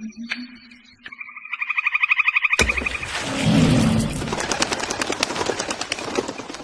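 Frogs calling: a rapid pulsed trill that grows louder, then from a few seconds in a dense, louder chorus of fast clicking calls.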